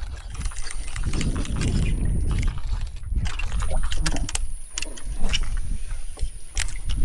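Outdoor handling noise: a low rumble with scattered clicks and knocks, over a thin steady high whine.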